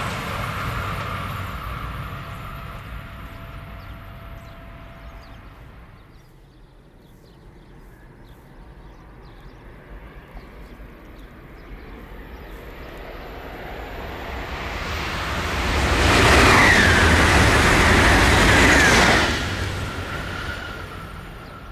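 AVE high-speed trains passing at speed: one train's rush fades away over the first few seconds, then another builds up and rushes past loudly from about 16 to 19 s, its sound dropping off sharply once it has gone by.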